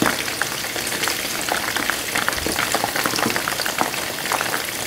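Chicken wings deep-frying in hot vegetable oil in a wok: a steady hiss of bubbling oil with many scattered crackles and pops.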